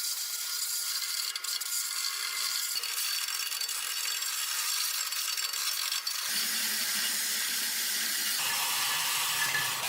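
Belt sander grinding the edge of a forged steel block: a steady, mostly high-pitched grinding noise, with a lower hum joining about six seconds in.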